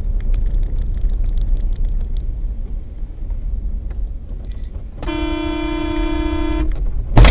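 Steady low rumble of a car driving, heard from a dash cam. About five seconds in, a car horn sounds one steady note for about a second and a half, and just before the end there is a sudden loud bang of impact, the loudest moment.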